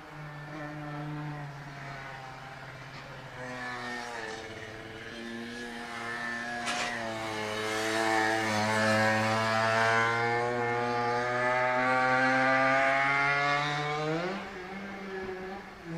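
Yamaha TZM50R two-stroke single running through a DGW expansion chamber at circuit speed. The engine note drops twice in the first seven seconds, then climbs slowly as it accelerates and gets louder, and jumps up sharply near the end.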